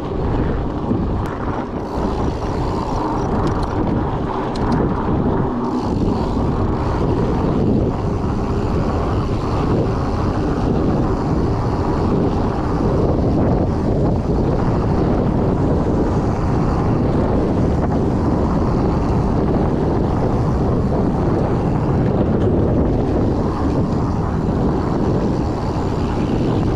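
Steady rush of wind on the camera microphone, mixed with the rolling of 26 x 4.8-inch knobby fat-bike tyres over a dirt singletrack at speed.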